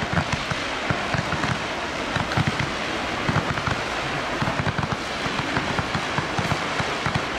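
Firework battery firing many shots in quick succession, with dense, continuous crackling like heavy rain and frequent small pops.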